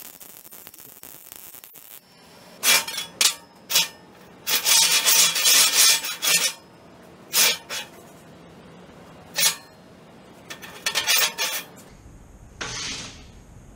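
MIG welding arc on a steel frame, switched on and off in bursts: three short tack welds, a longer bead of about two seconds, then several more short tacks.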